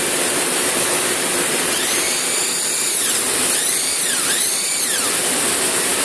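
Hand-held electric bag-closing machine sewing the top of a jute sack shut, its motor whine rising and falling a few times in the middle, over a loud, steady machine noise.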